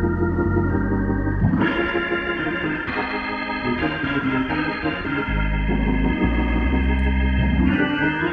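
Hammond-style organ playing slow sustained chords over held low bass notes, moving to a new chord every two seconds or so.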